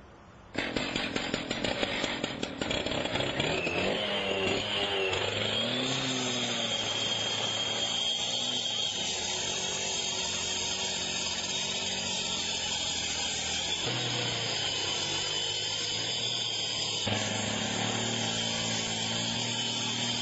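Gas-powered saw starting about half a second in, then running under load against a window security screen, its engine pitch rising and falling as the cut goes on, with a short easing off near the end.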